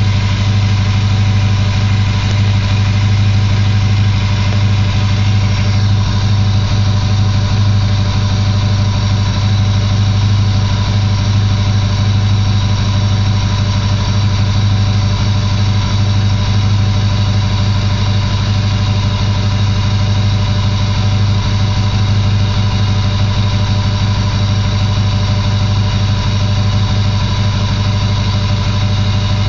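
2006 Ford F-250's 6.0L Power Stroke V8 diesel idling steadily, with a steady high whine over the low idle drone; the owner blames a bad turbo.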